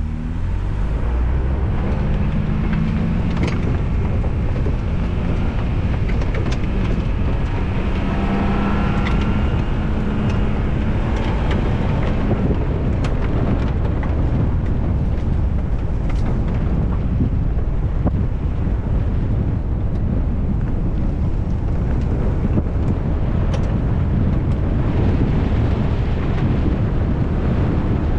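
Ford Bronco Wildtrak's twin-turbo V6 pulling hard on a dirt track, rising in pitch twice in the first twelve seconds, under heavy wind buffeting on the microphone and the rumble of tyres on dirt, with a few short knocks.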